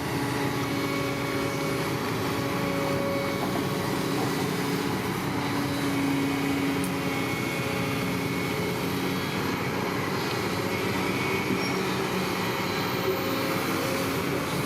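Bulldozer's diesel engine running steadily under work, an even unbroken machine noise.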